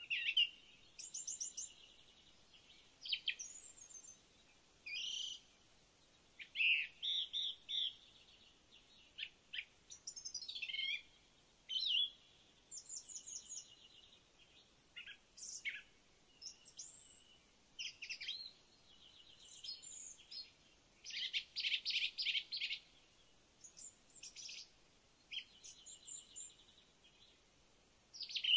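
Wild birds calling throughout, a busy mix of high chirps, quick down-sweeping whistles and rapid trills in clusters separated by short pauses.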